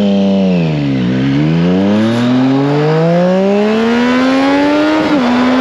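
Triumph Street Triple 765 RS's inline three-cylinder engine under way: the note falls off the throttle for about a second, then climbs steadily under hard acceleration for about four seconds, with an upshift near the end.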